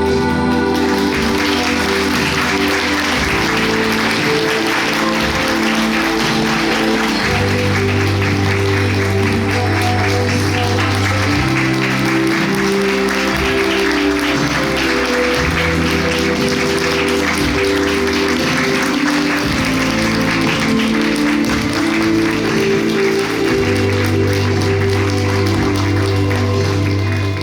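Theatre audience applauding steadily through a curtain call, over music with long held bass notes that change every few seconds.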